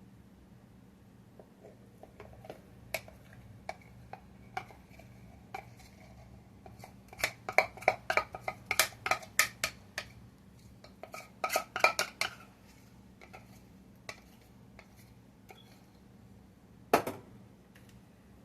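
Metal kitchen utensils clinking and tapping against dishes: scattered taps at first, quick runs of clinks around the middle, and one heavier knock near the end.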